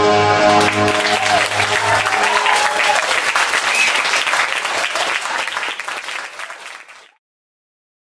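Audience applauding over the song's final held chord, which stops about two seconds in; the applause then fades and cuts off to silence about seven seconds in.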